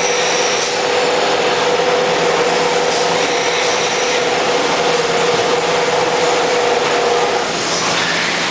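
Machinery on a CRT television production line running: a steady mechanical din with a low hum and a held whine that stops near the end.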